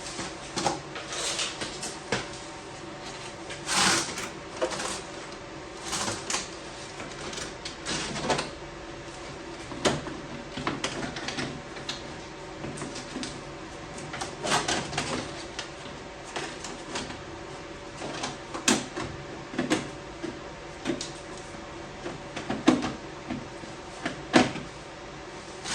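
Scattered knocks, clacks and clanks of metal parts and hand tools being handled while working on a car, at irregular intervals, over a steady background hum.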